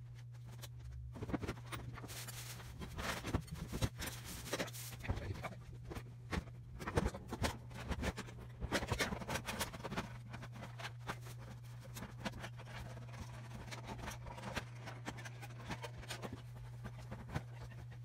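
Gloved hands working on a microwave's door panel and ceramic fiber insulation: irregular scraping, clicking and rustling, busiest in the first half, over a steady low hum.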